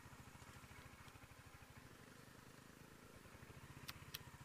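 Royal Enfield Hunter 350 motorcycle's single-cylinder engine idling faintly with a steady, even pulse; two sharp clicks near the end.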